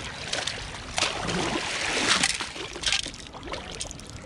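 Water sloshing and splashing, loudest from about one to two and a half seconds in.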